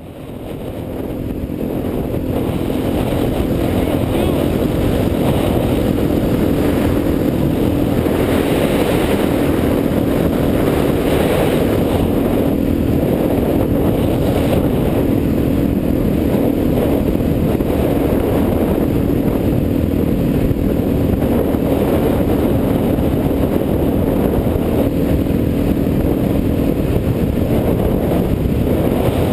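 Suzuki DR-Z400's single-cylinder four-stroke engine running at a steady cruising speed, fading in at the start, with heavy wind noise on the bike-mounted microphone.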